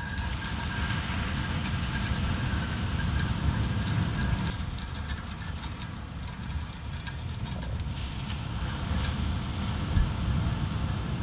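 Sea waves washing onto a sandy beach: a steady low rumble that swells and eases, with scattered faint clicks over it.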